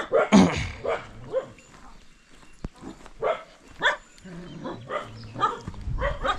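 A dog barking repeatedly, about ten short barks at uneven intervals, with a pause of a second or so after the first few.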